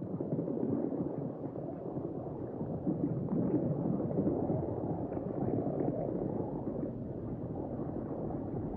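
Underwater ambience: a steady low rumbling, gurgling rush of water, with faint scattered clicks above it.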